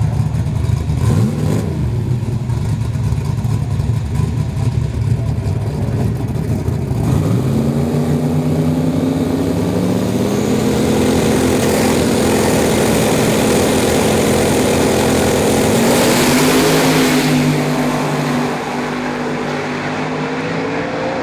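Dandy Engines 435 ci turbocharged Windsor V8 drag car running rough and lumpy at low revs, then revving up and held at a steady high pitch on the start line. Late on it launches with a loud surge and then drops away in level as it runs off down the strip.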